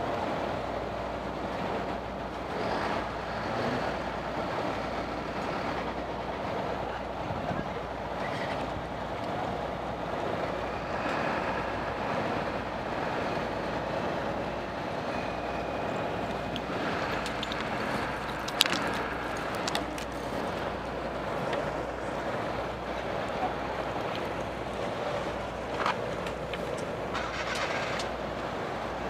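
Motorcycle engine running at low speed and idling, a steady rumble, with a sharp click about two-thirds of the way in.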